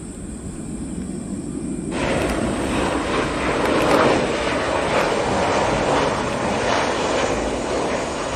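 Jet airliner's engines on landing approach: a steady, loud rushing noise. It starts abruptly about two seconds in, after a fainter low rumble, and peaks a couple of seconds later.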